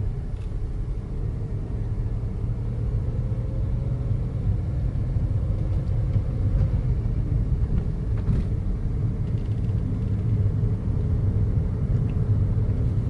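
A loud, steady low rumble that starts abruptly and continues without a break.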